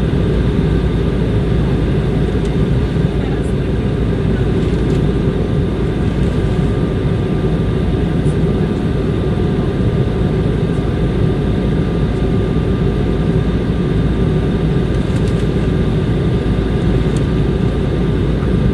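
Airbus A320 cabin noise in flight: a steady, loud drone of the engines and rushing airflow, with several faint steady whining tones from the engine fans.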